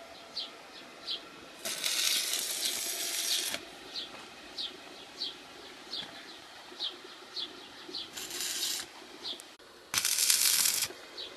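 Stick (MMA) arc welding on a steel LPG tank: the electrode arc crackles and hisses in three short runs, the first about two seconds long, then two of about a second each near the end. Between the runs a bird chirps repeatedly, short falling chirps about twice a second.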